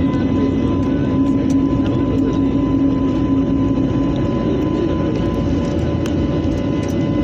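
Jet airliner's engines at climb power, heard from inside the cabin: a loud, steady rumble with a few held tones over it. The lowest hum weakens about four seconds in.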